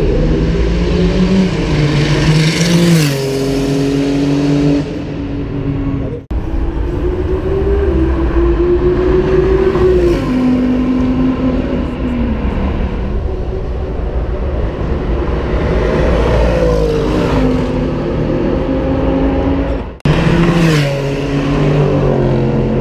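High-performance sports car engines at full throttle accelerating down a race track straight and passing close by. Each engine's pitch climbs and then drops as the car goes past. The sound cuts abruptly to a new pass twice, about six seconds in and near the end.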